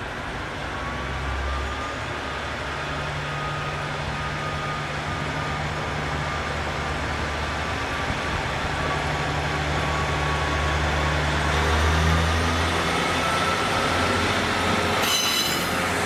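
KiHa 48 diesel railcar approaching slowly and drawing past, its diesel engine running with a low steady hum and a faint wheel whine, growing louder as it nears. A brief high squeal comes near the end.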